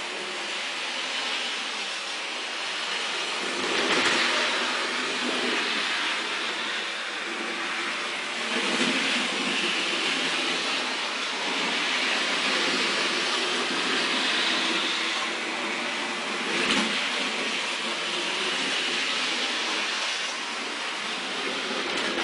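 Rivarossi HO-scale model of a Norfolk & Western Y6b 2-8-8-2 steam locomotive running on its own around a test track. Its electric motor and gears whir steadily while the wheels rattle on the rails. The sound swells and eases a few times as the engine goes round the oval.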